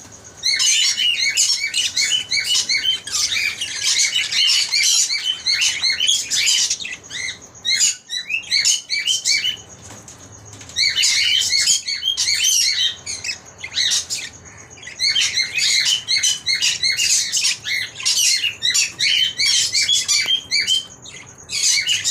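Lovebirds chattering: rapid, high, shrill chirps in bouts of a few seconds, with short pauses between bouts.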